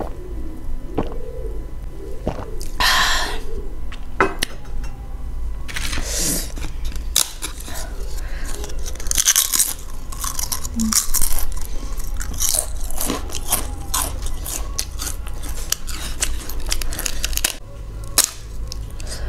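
Close-up eating: chewing, then dense, crisp crunching from about six seconds in until near the end, as a papad (a thin, crisp lentil wafer) is bitten and chewed.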